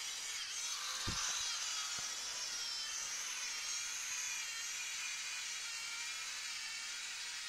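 LEGO Mindstorms NXT 2.0 robot's geared servo motors whirring steadily as it drives, a high wavering whine, with a thump about a second in and a light click shortly after.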